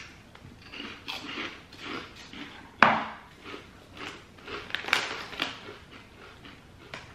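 Crunchy corn-flour snack twists being bitten and chewed, a run of irregular crisp crunches with the sharpest, loudest one about three seconds in.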